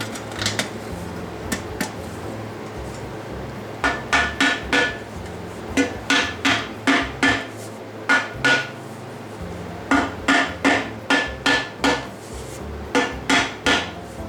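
Hand hammer beating a titanium sheet into a silencer cap: quick runs of sharp metallic blows, three to seven at a time with short pauses between, each blow ringing briefly.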